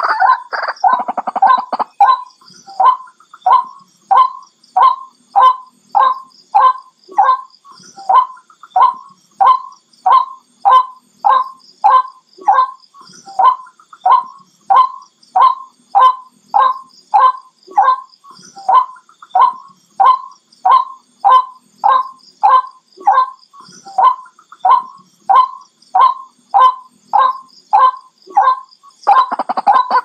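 White-breasted waterhen calling: a long run of single, monotonous notes repeated about twice a second, with a denser jumble of overlapping calls in the first two seconds and again near the end.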